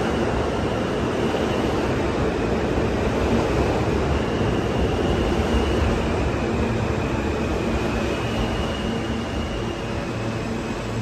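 New York City subway E train moving along the platform track: a steady rumble of wheels and running gear with faint high whines over it, easing slightly near the end as the train clears the platform.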